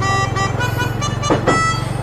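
Basuri telolet horn playing a tune of short held notes that step up and down in pitch, over a steady low hum.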